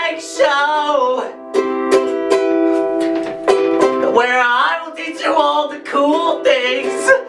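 A man singing a song while strumming a ukulele, its chords ringing between and under his sung lines, with the echo of a small tiled room.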